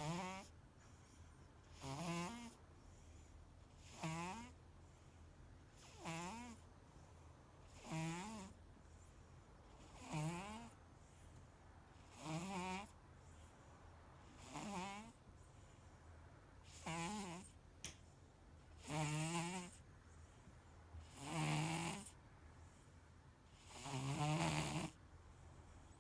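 A sleeping domestic cat snoring: about a dozen snores, one roughly every two seconds, each with a wavering pitch. The last few snores are louder. A faint click comes once, a little before the last three snores.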